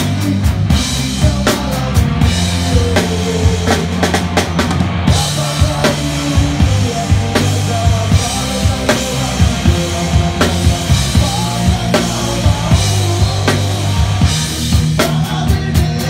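Live band playing with the drum kit loudest: frequent kick and snare hits and cymbal wash, over sustained low notes.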